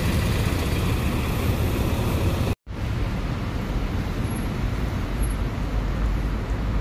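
A three-axle city bus's engine running with a low rumble as it pulls away from the stop; then, after a sudden cut about two and a half seconds in, street traffic noise with a city bus approaching.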